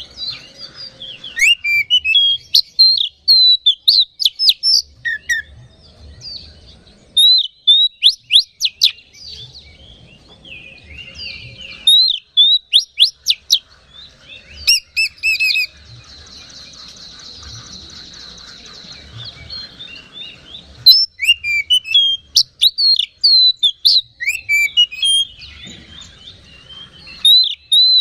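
Oriental magpie-robin singing loudly in bursts of varied whistles and rapid sweeping, chattering notes, with a harsh buzzy rasp held for about five seconds midway. It is the bird's full, excited song, the kind played to rouse other magpie-robins into singing and aggression.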